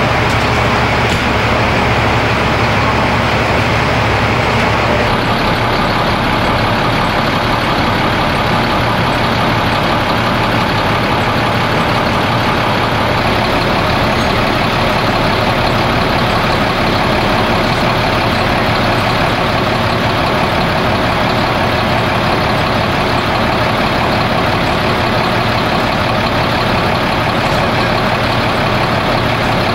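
A heavy diesel engine, likely a fire engine, running steadily at idle, giving a loud, even noise.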